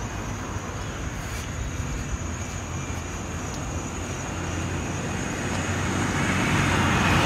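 Road traffic noise: a steady rush of car tyres on a wet street, growing louder over the last few seconds.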